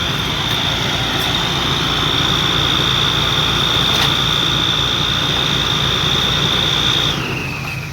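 Heavy diesel engine of earthmoving equipment running steadily, with a high whine over it that drops in pitch near the end.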